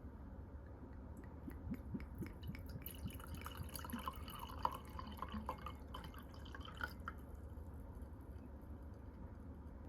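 Small wet clicks and drips, bunched together from about a second and a half in to about seven seconds in, over a steady low hum.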